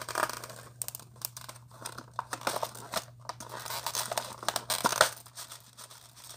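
Small plastic craft beads rattling and clicking inside a round plastic compartment case as it is handled and tilted, with scattered sharp clicks and plastic creaks.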